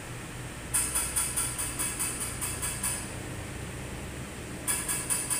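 Machinery noise: a steady low hum with two spells of fast, regular rattling at about five strokes a second, each lasting a couple of seconds.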